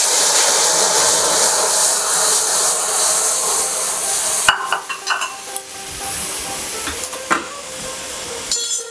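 Boiled masoor dal hitting hot mustard-oil tempering in a kadai, setting off a loud sizzle that eases about halfway through. A few light knocks follow in the second half.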